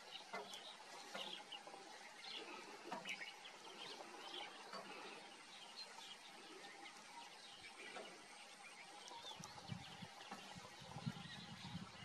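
Faint chorus of wild birds chirping and calling in short notes, with a low, uneven rumbling coming in about nine seconds in.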